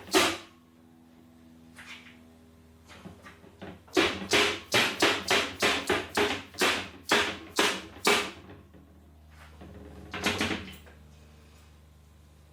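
A mallet tapping a part into place: a quick run of about ten blows, a little over two a second, in the middle, each leaving a short ring, then one more blow near the end.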